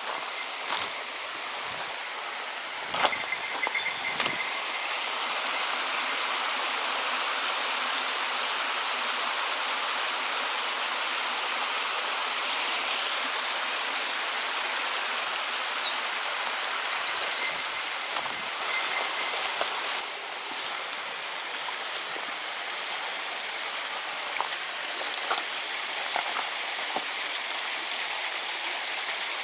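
Mountain stream water rushing steadily over rocks, with a few sharp knocks about three seconds in.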